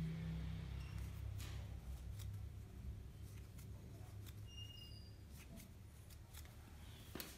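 Quiet room with a low hum that slowly fades, and faint ticks and rustles of hands working yarn with a crochet hook. A couple of brief faint high peeps sound about four and a half seconds in, and a small click comes near the end.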